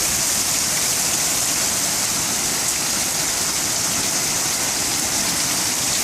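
Heavy downpour of rain: a steady, even hiss of rain pouring down.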